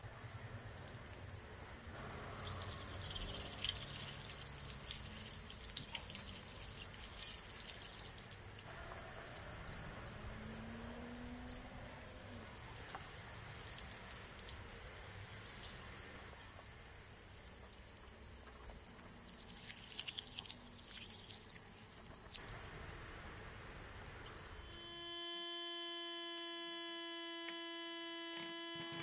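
Water running and splashing, an uneven hiss. About 25 seconds in it stops and a steady electric hum with several overtones takes over.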